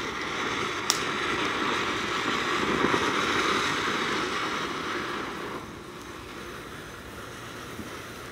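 A ground fountain firework hisses steadily as it sprays sparks, with a single sharp pop about a second in. The hiss drops to a quieter level about five and a half seconds in.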